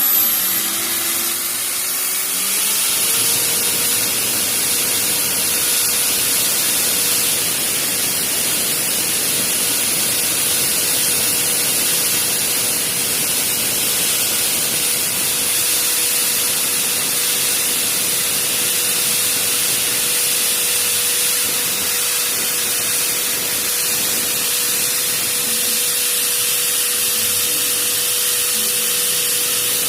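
Electric drill fitted with a 1/8-inch bit, running at speed. Its whine rises over the first couple of seconds, then holds one steady pitch over a hiss.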